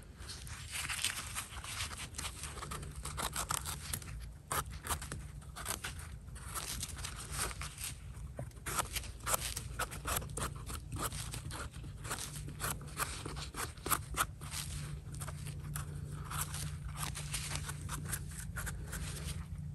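A mushroom knife and its brush scraping soil off the stem of a freshly picked bolete: a long run of short, irregular scrapes and crackles.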